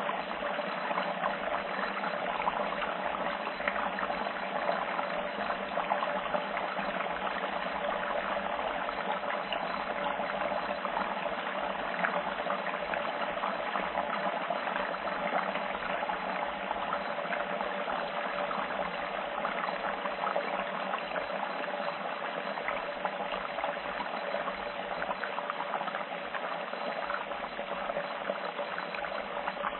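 Food sizzling and crackling in hot oil in a frying pan, a steady dense spatter of tiny pops.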